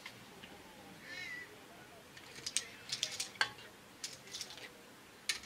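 A few sharp clicks and clatters of tools being handled at a bare cast-iron engine block, including a WD-40 spray can set down on it. About a second in, a short call rises in pitch.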